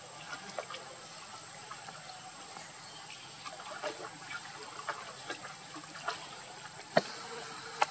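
Light splashing and dripping of pond water stirred by macaques swimming and bathing, a string of small scattered splashes over a faint steady hiss. A sharper snap about seven seconds in is the loudest sound.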